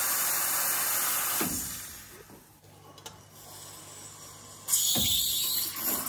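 Nook mini espresso machine's steam wand purging condensate with a loud hiss that fades out about two seconds in. Near the end the steam opens again with another loud hiss as the wand goes into a pitcher of cold milk to steam it.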